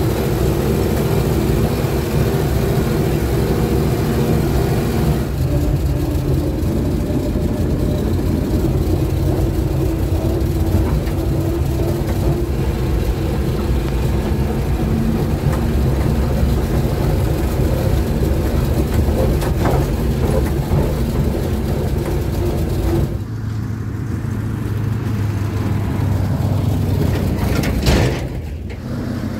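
GAZ-66 truck's V8 petrol engine running steadily under way, heard from inside the cab. About 23 seconds in the sound turns duller and lower. Near the end there is a brief loud swell as the truck passes close by, then a sudden drop.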